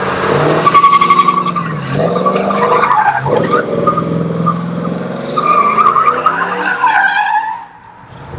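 GMC Sierra pickup doing a donut: the engine revs up and down while the rear tyres spin and squeal on the pavement. The noise dies away near the end as the truck stops.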